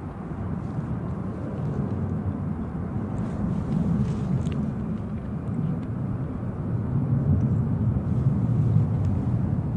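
Low, steady outdoor rumble that slowly grows a little louder, with a few faint ticks over it.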